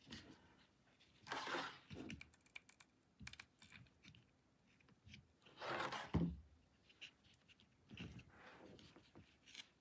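Faint handling noises of craft work: rustling and light clicks and taps as fabric ribbon is folded and glued down with a mini hot glue gun, with a few slightly louder rustles about a second and a half in, around six seconds and around eight seconds.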